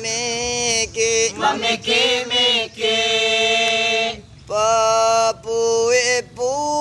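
A man singing a traditional chant in long, held, ornamented notes, pausing briefly for breath twice.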